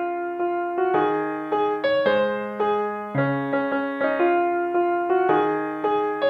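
Background music: a piano-like keyboard playing a gentle melody over sustained chords, the notes struck at an even pace.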